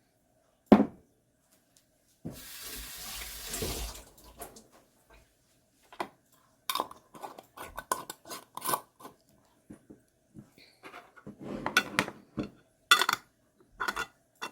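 Kitchenware being handled: a knock, then a short rush of running tap water lasting about a second and a half, then a string of clinks and clatters of dishes and utensils.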